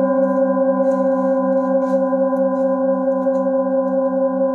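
Singing bowl sounding a steady, sustained ring of several tones at once, the lowest tone pulsing about five times a second.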